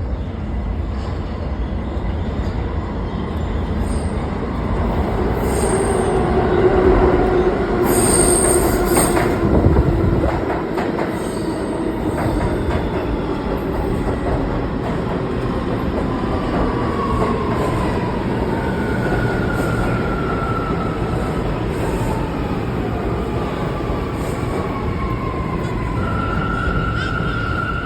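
New York City subway train pulling into a station. A heavy rumble with high-pitched wheel squeals is loudest in the first ten seconds. Then the rumble eases and several falling whines sound as the train slows.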